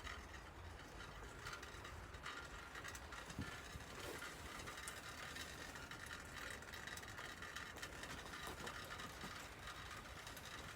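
Faint, steady outdoor snowstorm ambience: an even hiss with scattered small ticks.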